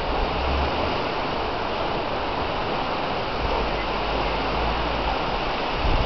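Steady rush of wind and small lake waves breaking on the shore, with gusts buffeting the microphone in low rumbles at the start, through the middle and near the end.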